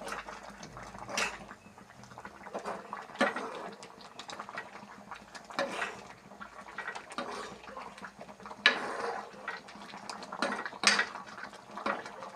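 A cooking spoon scrapes and knocks against a pot as an egg curry is stirred, one stroke every second or two, with the curry simmering faintly underneath.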